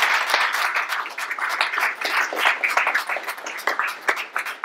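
A small audience applauding: many hands clapping in a dense patter.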